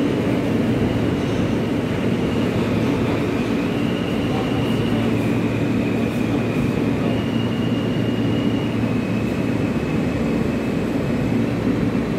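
Riding inside a moving New York City subway car: the steady rumble and rattle of the train running on the track, with a faint high whine that steps up and down in pitch a few times.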